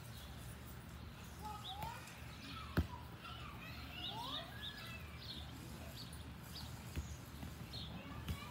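Backyard birds chirping and singing over a low steady outdoor hum, with a single sharp thud of a soccer ball about three seconds in.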